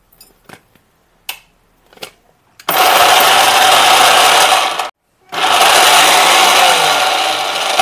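National Xpro 4 mixer grinder grinding sprouted green gram coarsely in its steel jar. A few light clicks as the jar is handled come first. Then the motor runs for about two seconds, stops briefly, and runs again for about three seconds: pulsed to keep the grind coarse.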